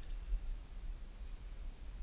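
Low wind rumble on the microphone, with one faint tick about half a second in.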